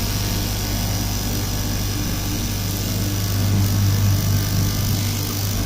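Garment machine running with a steady low hum and a constant hiss; it swells slightly louder a little past the middle.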